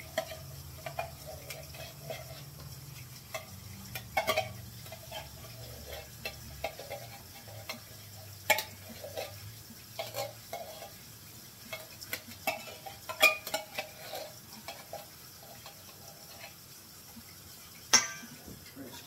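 A spoon stirring and scraping in a bowl, with sharp clinks of the utensil against the dish every few seconds.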